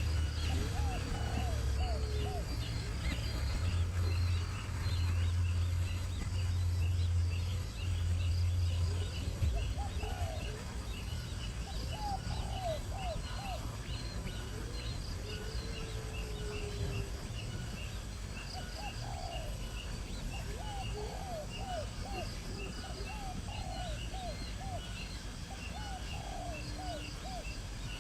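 Birds calling: runs of short, low hooked notes repeated every few seconds over a constant high chirping. A low rumble underlies the first nine seconds or so.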